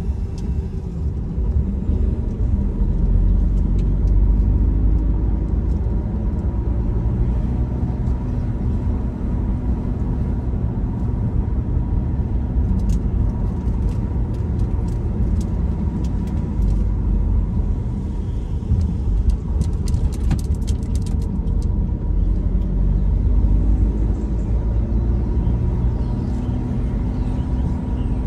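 A car driving: a steady low engine and road rumble, the engine pitch rising and falling several times.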